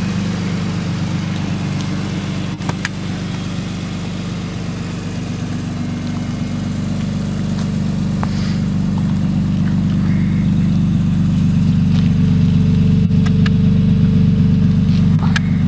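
2006 BMW M3's inline-six idling steadily through a custom Magnaflow straight-pipe exhaust, a deep, even drone that grows louder toward the end as the quad tailpipes come close.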